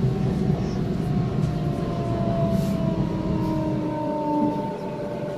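Electric passenger train running, heard from inside the carriage: a steady rumble of wheels on track with a motor whine that slowly falls in pitch as the train slows into a station.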